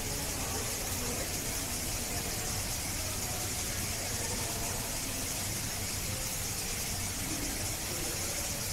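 Steady high-pitched hiss over a low hum, unchanging throughout: background ambience of the enclosure.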